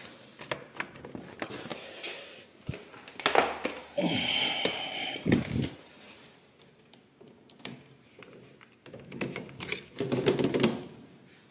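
Scattered light clicks and rustling of hands handling equipment, with a louder rustling burst about four seconds in.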